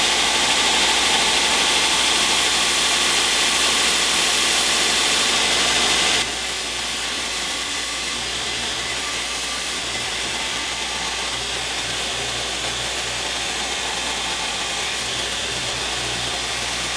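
Steady running noise of workshop equipment with a low hum underneath. About six seconds in it drops suddenly to a quieter steady level.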